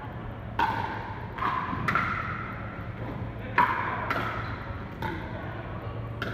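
Pickleball paddles striking a hollow plastic ball in a rally: about six sharp pops, irregularly spaced, the loudest a little past halfway, each ringing briefly in the echo of a large sports hall.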